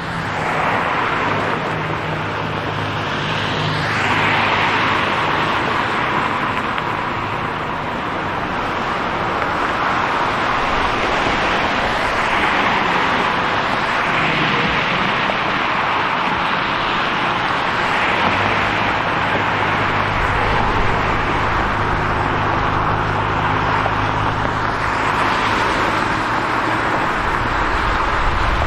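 City street traffic: cars passing one after another, their tyre noise swelling and fading every few seconds over a steady engine hum. A deeper engine rumble joins about two-thirds of the way through.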